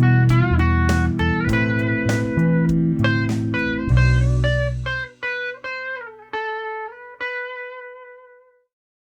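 Lead guitar playing single-note phrases with string bends over a backing progression with bass. The backing stops about five seconds in, and the last few lead notes ring out and fade to silence.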